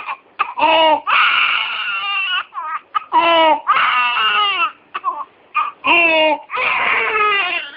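Young child crying in about six sobbing bouts, drawing breath with stridor between them: the sign of croup (pseudocroup).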